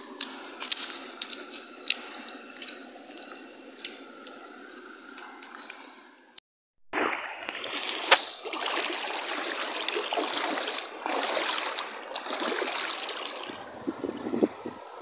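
Light crinkles and clicks of a plastic bag as hands pick at grilled fish, over a steady wash of flowing stream water. After a cut about six seconds in, loud splashing and sloshing in a shallow stream as a man wades and reaches into the water with his hands, with one sharp splash soon after the cut.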